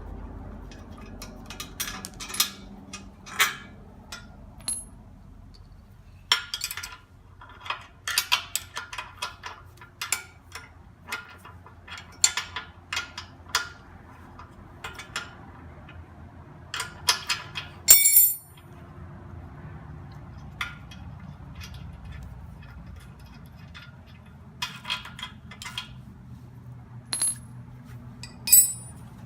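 Wrench and socket working the 9/16 bolts that secure a backhoe bucket's pins: irregular bursts of sharp metallic clicks and clinks, with a louder clank about 18 seconds in.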